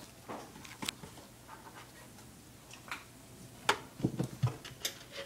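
Scattered knocks and clicks, the sharpest about three and a half seconds in, followed by a few duller thuds.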